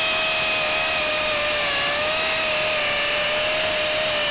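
DeWalt DCD999B 20V brushless cordless hammer drill in hammer mode at its high speed setting, drilling a masonry bit into a concrete slab. A steady whine over a harsh rattling noise, the pitch sagging slightly under load about two seconds in.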